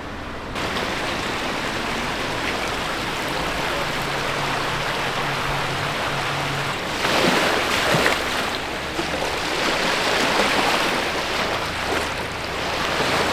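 Rushing water over stones in a shallow stream, then, from about seven seconds in, louder and more uneven wash of small lake waves on a pebble shore, with wind on the microphone.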